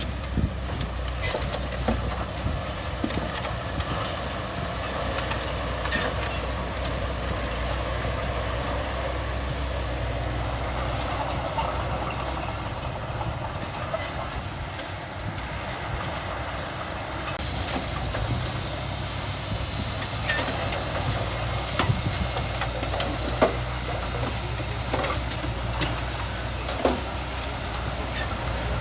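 Heavy diesel earthmoving machinery running steadily, with scattered sharp clanks and knocks, the loudest ones in the last several seconds.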